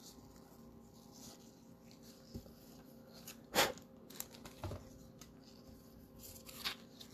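Faint handling of trading cards: a few soft clicks and rustles, the loudest about three and a half seconds in, over a low steady hum.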